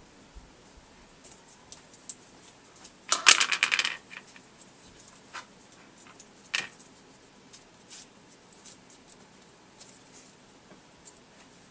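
Five-week-old Sheltie puppies scrabbling on a tile floor: scattered light clicks and taps, with a short louder burst about three seconds in.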